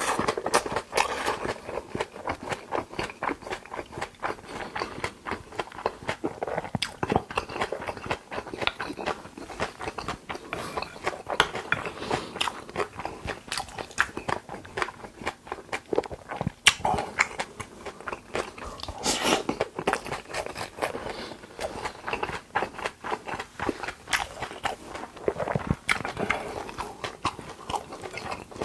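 A person chewing and biting raw beef close to the microphone, many small mouth clicks and smacks in quick succession.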